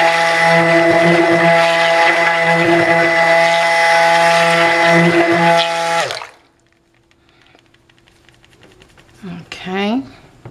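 Waring stick blender running steadily in a small cup of cold-process soap batter, a whirring motor tone, then switched off about six seconds in, its pitch sagging as it stops. After that only faint handling sounds, with a short sound near the end.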